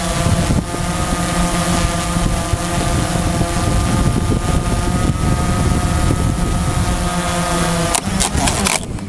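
Quadcopter drone's propellers whining steadily in flight, with rushing wind noise on its microphone. About eight seconds in, a series of sharp knocks and clatter as the drone crashes into the ground.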